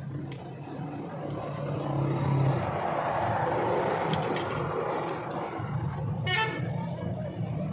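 Motor traffic going by: a vehicle's rushing noise swells and fades over a steady low engine hum, with a short horn toot about six seconds in. A few light metallic clicks come from a screwdriver working at a steel drum-brake shoe.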